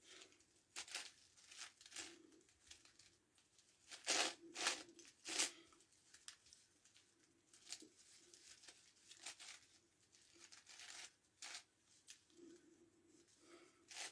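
A 9x9x9 Rubik's Cube being turned by hand: faint, irregular plastic clicks and scrapes as its layers are twisted, with a louder cluster of quick turns about four to five seconds in.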